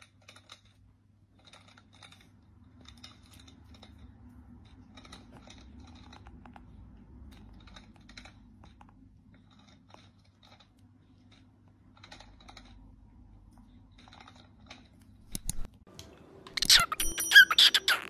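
Faint, irregular small clicks and crunches over a low hum, then a cockatiel's loud calls and whistles starting about a second and a half before the end.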